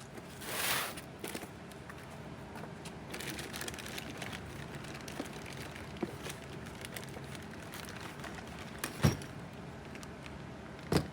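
Packaging being opened and handled: rustling and crinkling with scattered small clicks, a louder swell of rustle in the first second, and two sharper knocks about nine seconds in and near the end, as new wheel hub assemblies are unboxed.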